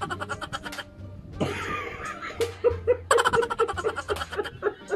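A man and a woman laughing hard, in quick repeated bursts of laughter with a short lull about a second in.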